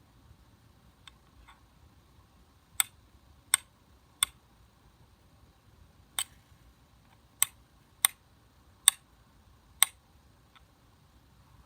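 Flint struck against a fire steel to throw sparks: a series of sharp metallic clicks, about eight strong strikes at uneven intervals, with a few fainter taps before and after.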